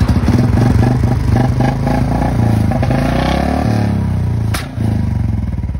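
Single-cylinder Royal Enfield Bullet motorcycle engine running and being revved, its pitch rising and falling, with one sharp click about four and a half seconds in.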